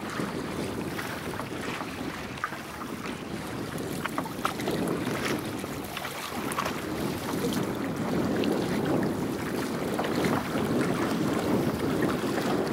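Wind buffeting the microphone over water rushing and lapping around a paddled canoe, with a few light splashes in the first half; the rush grows gradually louder toward the end.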